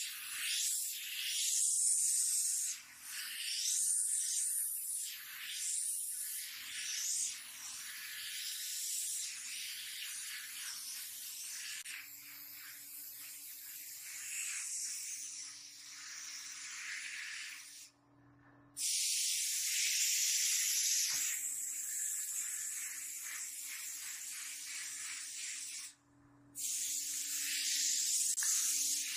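Gravity-feed paint spray gun hissing as paint is sprayed onto a wall, the hiss rising and falling with the trigger and cutting off briefly twice in the later part. A faint steady low hum runs underneath.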